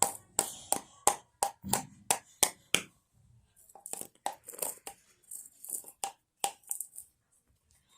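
A baby rattling a container like a toy rattle: sharp clacks about three a second for the first three seconds, then softer, irregular rattling that stops about seven seconds in.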